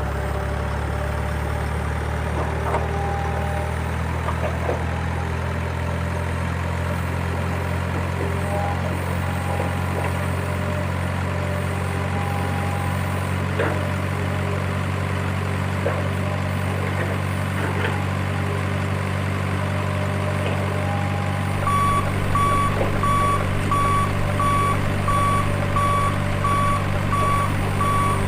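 Bulldozer engine running steadily, with scattered light clanks. About 21 seconds in, a reversing alarm starts beeping, roughly one and a half beeps a second.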